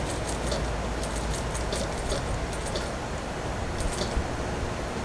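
Industrial sewing machine stitching slowly through a suit sleeve: light, irregular ticks over a steady hum.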